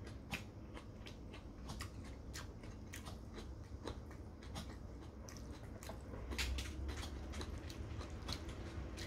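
A person chewing a mouthful of noodles and meat, with many short, sharp mouth clicks.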